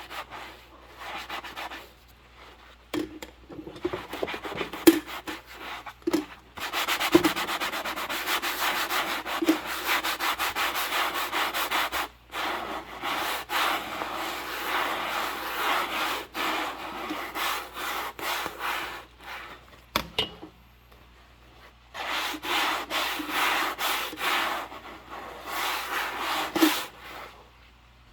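Dishes being scrubbed by hand in rubber gloves: long stretches of rasping scrubbing, broken by a few short pauses.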